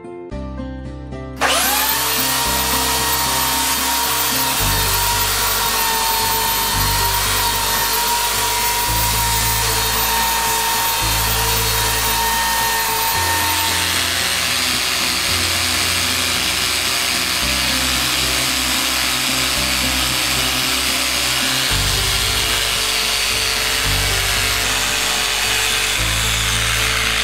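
A power tool runs steadily from about a second and a half in, with a high motor whine that drops away about halfway through while the tool noise carries on. Background music with a bass line plays underneath.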